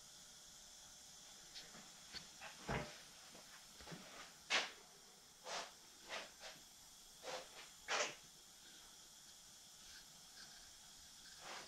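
Faint, scattered short scuffs and rustles at irregular moments, the loudest about four and a half and eight seconds in, over a steady faint hiss: movement and handling noise as someone walks around with the camera.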